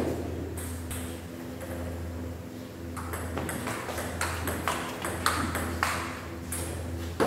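Table tennis ball being hit back and forth: a series of sharp clicks of the celluloid ball on bats and table, with a lull about a third of the way in before the clicks pick up again. A steady low hum runs underneath.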